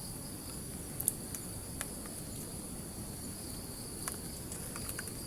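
Steady, high-pitched chorus of forest insects, with a few light clicks, the clearest about a second in.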